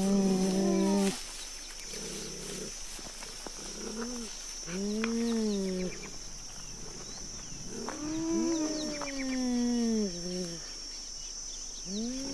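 A big cat making a series of drawn-out calls, built from cheetah and leopard recordings. Each call rises and falls in pitch over one to two seconds, about four times, with short pauses between.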